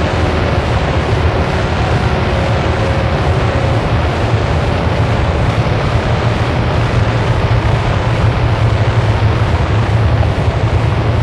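Harsh noise music: a loud, unbroken wall of dense noise with a heavy low rumble and no pauses. A few faint held tones are audible in the first moments.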